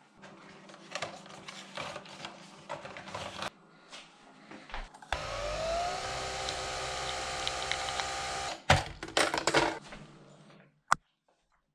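A small electric motor starts about five seconds in with a rising whine, runs steadily for about three and a half seconds and then stops, with clicks and knocks of handling before and after it.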